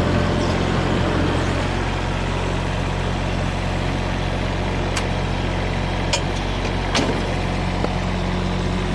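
Komatsu PC10-7 mini excavator's diesel engine running steadily at constant speed, with a few short clicks in the second half.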